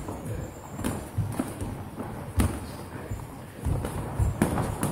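Boxing sparring: several sharp smacks of gloved punches landing at irregular intervals, mixed with dull thuds of footwork on the ring canvas.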